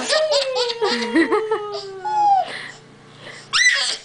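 Baby girl laughing: a run of giggles that trails off after about two and a half seconds, then a short high-pitched squeal near the end.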